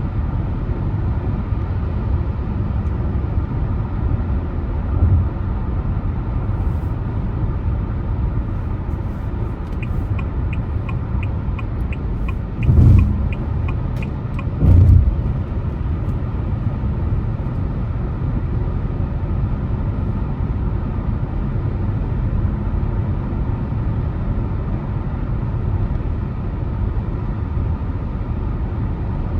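A car driving with a steady low road and engine rumble. For a few seconds about a third of the way in, a turn-signal indicator ticks quickly, about four ticks a second, and two low thumps come about two seconds apart.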